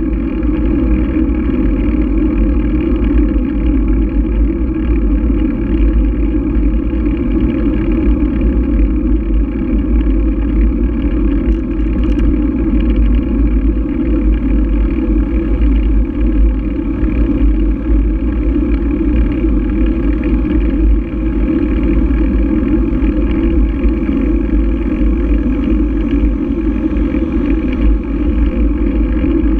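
Steady, loud, low rush of wind buffeting and tyre rumble picked up by a low-mounted GoPro on a bicycle rolling over asphalt.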